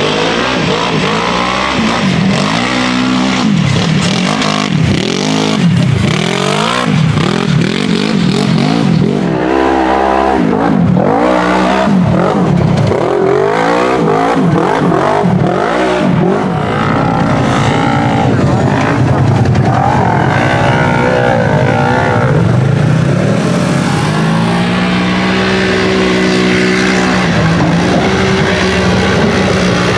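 Side-by-side UTV engine revving hard, its pitch swinging up and down about once a second as the throttle is worked on and off, then held mostly steady at high revs through the last third.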